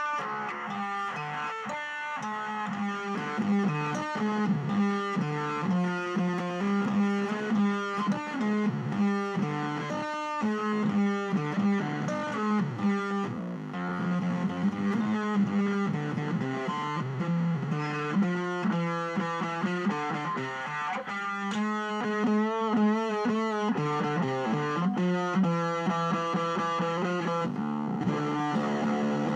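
Electric guitar played through a modded Boss DS-1 distortion pedal with an octave fuzz mod, giving a fuzzy, distorted tone. Notes run on continuously, with wavering, bent pitches about two-thirds of the way through.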